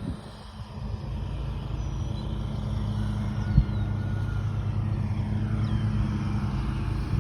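A motor vehicle's engine running steadily as a low hum that grows slightly louder, with a single knock about three and a half seconds in.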